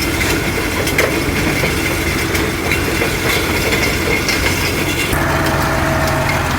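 International 560 tractor engine running, with the rattle and scattered knocks of the hitched grain drill. About five seconds in, the engine settles into a steadier, clearer hum.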